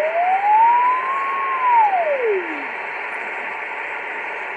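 Heterodyne beat note from a signal generator's carrier, heard through an Icom IC-718 HF transceiver's speaker in USB mode over steady receiver hiss. As the tuning knob is turned, the whistle rises, then glides down and drops out as the dial nears the generator's frequency.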